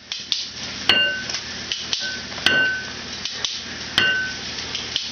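Metal cookware struck in a steady beat, a hit about every one and a half seconds, each ringing briefly, with lighter clinks between.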